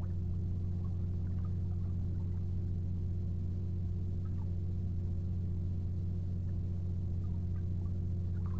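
Steady low hum, unchanging throughout, with a few faint scattered ticks above it.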